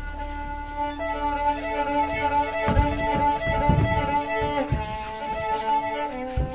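Solo violin playing slow, long bowed notes, often two at once. A few dull thuds of bare feet on the wooden stage break in around the middle and near the end.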